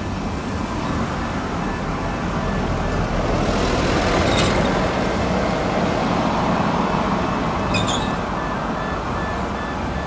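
Twin rear-mounted turbofans of a business jet running as it taxis and turns, a steady jet rush with a thin whine that swells in the middle and eases off toward the end.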